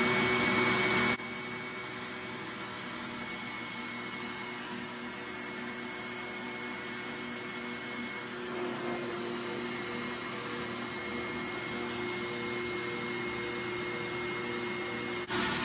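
Steady motor hum with a few held tones, dropping in level about a second in and coming back up near the end.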